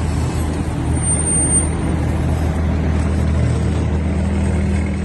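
A steady low engine hum, like a motor vehicle idling, with a thin high whine for about a second near the start.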